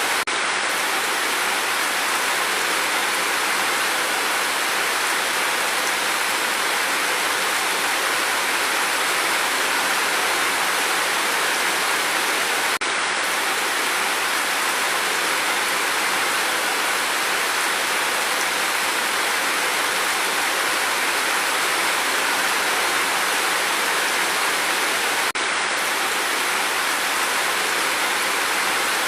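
Steady rain falling as an even hiss, with no thunder.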